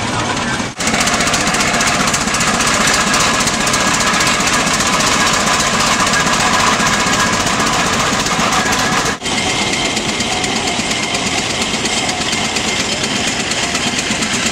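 Old engine machinery running with a loud, fast, even knocking rattle. The sound changes abruptly twice, about a second in and about nine seconds in.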